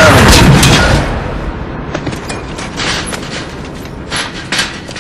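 Gunfire: a loud, dense burst in the first second, then scattered single rifle shots that grow fainter.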